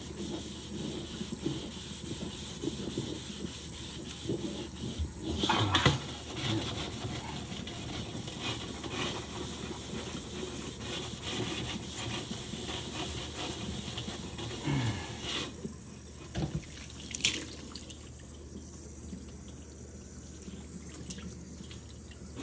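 Kitchen tap running into a stainless steel sink while a rusting steel wok is scrubbed under the stream with a scrub pad. A few louder sudden sounds stand out, about six seconds in and again a little past the middle.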